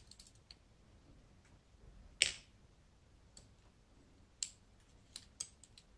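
Light, sharp clicks of steel tweezers working pins inside a disassembled lock cylinder core: one louder click about two seconds in, another past four seconds, and a quick run of clicks near the end.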